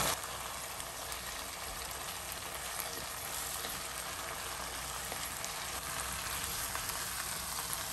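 Potato masala of onions, peas and water sizzling steadily in a pan on the stove, with fine small crackles, as mashed boiled potato is added.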